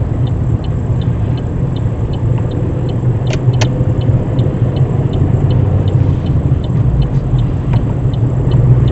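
Steady engine and road drone inside the cabin of a loud, 192,000-mile car under way, with the indicator ticking regularly, about three ticks a second. Two sharp clicks come a little over three seconds in.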